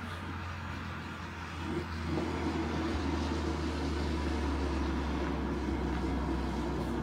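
Steady road and engine noise heard from inside a moving car: a low drone with a hiss of tyre noise over it, getting a little louder about two seconds in.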